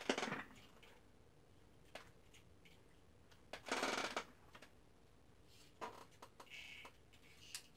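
Faint handling noises from a Traxxas TRX-4 RC crawler chassis being flexed by hand on its suspension: scattered light clicks and rustles, with a longer scuffing rustle about three and a half seconds in.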